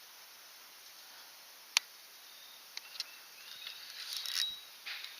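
Faint outdoor background with one sharp click a little under two seconds in, two lighter ticks about a second later, and brief rustling toward the end.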